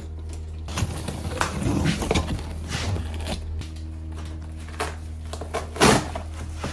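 A cardboard box being slit open along its taped seam with a knife and its flaps pulled apart: a string of short scrapes, rustles and knocks of cardboard, the loudest about six seconds in, over a steady low hum.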